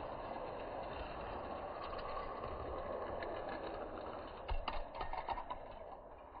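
Die-cast Hot Wheels cars rolling along orange plastic track, a steady rattle of small wheels that fades toward the end, with a cluster of clacks about four and a half to five and a half seconds in.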